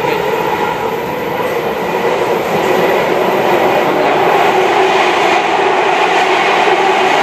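Inside a MARTA rapid-transit railcar running at speed: a steady rumble and hum of the train, growing louder about halfway through as it runs between walls and into a tunnel.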